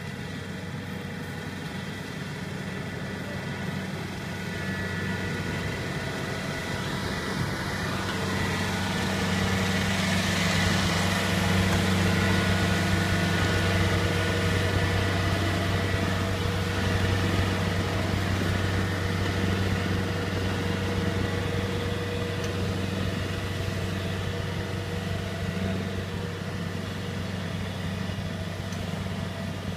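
Kubota rice combine harvester's diesel engine running steadily under harvesting load. It grows louder as the machine passes close, about a third of the way in, then fades as it moves away.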